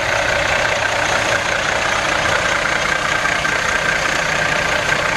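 Diesel engine of a Kenworth W900L semi truck idling steadily.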